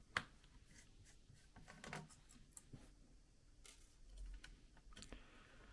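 Faint, scattered small clicks and light scrapes of a screwdriver on the laptop's heatsink screws, one sharper click right at the start, over quiet room tone.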